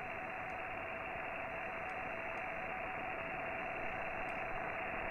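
Receiver audio from a Nooelec V5 RTL-SDR tuned to a weak longwave signal: steady hiss cut off above about 3 kHz, with a steady whistling tone near 700 Hz from the received carrier.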